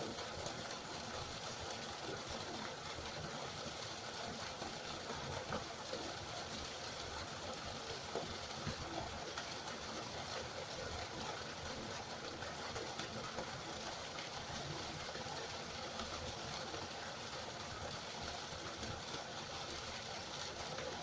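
River water flowing, a steady rushing with small irregular splashes.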